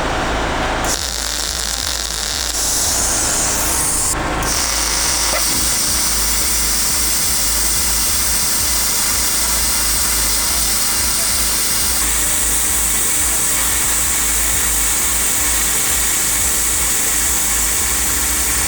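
CUT-50 plasma cutter cutting at around 50 to 55 amps, a steady hiss and buzz that starts about a second in. Under it, the Wolf WPX7500E generator's single-cylinder petrol engine runs carrying the cutter's load.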